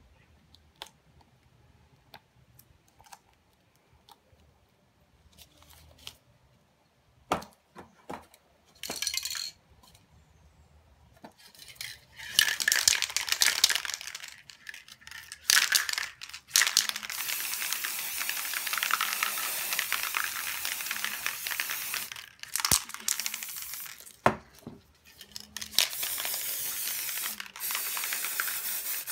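Aerosol spray paint can hissing in long bursts from about twelve seconds in, with short pauses and a few clicks between them. Before that there are only scattered light clinks and taps over near quiet.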